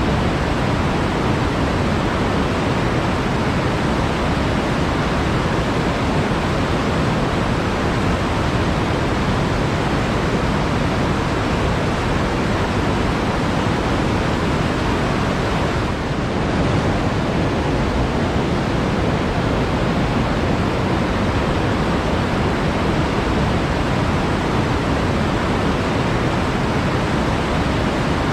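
Flowing water rushing steadily, a dense even hiss, with a brief slight dip about sixteen seconds in.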